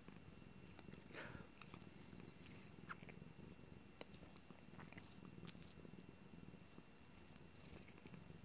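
Cat purring faintly under a blanket as it is stroked, with soft rustles and small clicks from the blanket's fabric.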